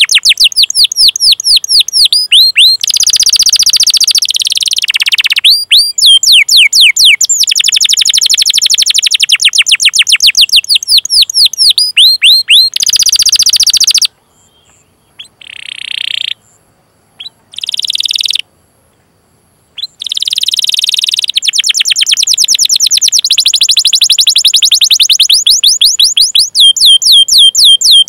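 Domestic canary singing a long, rapid 'cuit cuit' rolling song: fast runs of high, downward-sweeping chirps, many a second. About halfway through it falls silent for several seconds, apart from a few short notes, then takes up the fast runs again.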